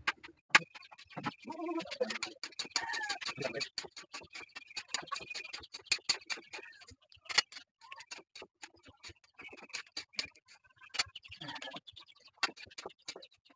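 Metal spatula clicking and scraping against a wok while stir-frying noodles, a dense irregular run of small clicks. Birds call in the background, mostly in the first half.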